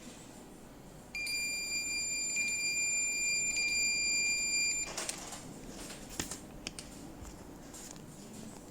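Ceiling fan remote control receiver's buzzer sounding one long, steady, high-pitched beep lasting nearly four seconds. This is the beep the kit gives when it is reset into Wi-Fi pairing mode by holding the remote's Light + Hi button. A few light clicks and knocks follow.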